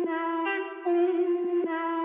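Background music: a slow melodic intro of held notes that shift only slightly in pitch.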